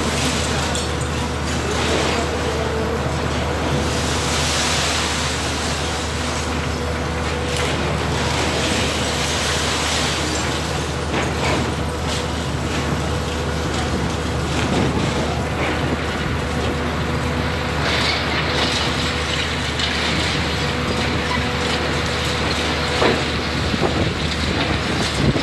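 Hitachi Zaxis 350 high-reach demolition excavator running steadily, its diesel engine and hydraulics making a continuous drone with a steady whine. Scattered cracks and knocks come through as the crusher jaws bite into the concrete and debris falls, with a couple of sharper ones near the end.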